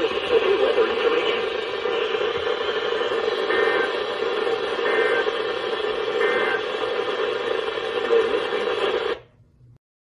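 Weather radio receiver hissing with heavy static, with three short two-tone data bursts about a second and a half apart in the middle, the EAS end-of-message code that closes an alert. The audio then cuts off suddenly about a second before the end.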